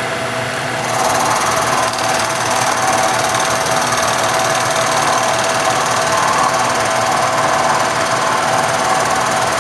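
Vertical milling machine running, its end mill cutting into a laminated wood block. About a second in the cut bites and a louder, steady cutting noise rises over the spindle's hum and holds.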